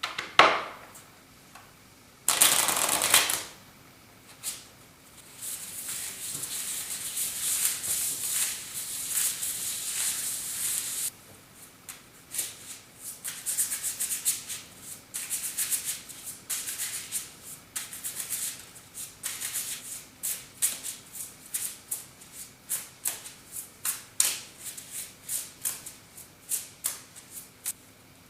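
Playing cards being shuffled by hand. First comes a short burst of riffling, then several seconds of continuous card rustling, then a long run of quick card flicks at about two a second.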